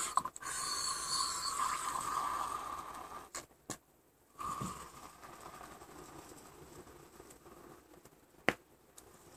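Water being poured into a baby bottle: a steady pour for about three seconds, a couple of clicks, then a second, quieter pour that tapers off.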